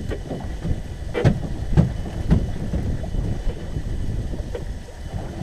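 Wind buffeting the microphone over waves slapping a small boat's hull, with three sharp knocks about half a second apart a little over a second in.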